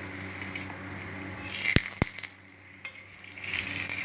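Oil hitting a hot tawa under a stuffed potato puri, sizzling up loudly about a second and a half in, with two sharp clicks just after. The sizzle of shallow-frying builds again near the end.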